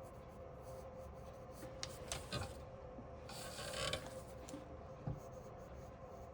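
Shading strokes scratching on paper: a couple of short strokes about two seconds in, then a longer stretch of scratching a little later, over a faint steady hum.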